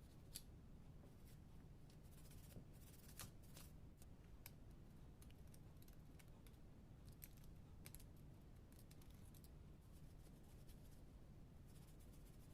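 Faint, scattered light clicks and small scrapes over a low steady hum, near room-tone level.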